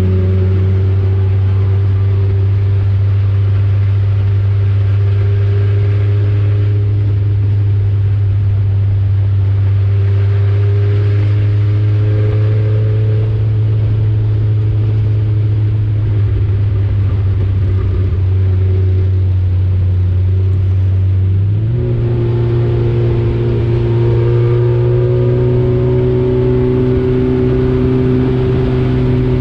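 Four-cylinder Econo4 race car engine running under load, heard from inside the car's cockpit. The note rises and falls slowly through the turns, and it steps up in pitch suddenly about three-quarters of the way through.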